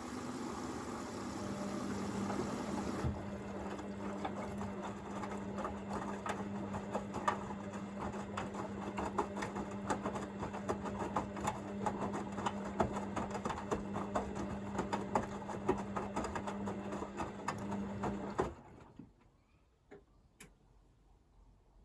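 Hoover VisionDynamic washing machine in its first rinse: the drum motor hums steadily while the tumbling load makes many small clicks and knocks. A steady hiss at the start stops about three seconds in. The drum cuts off suddenly about 18 seconds in, leaving a few faint ticks.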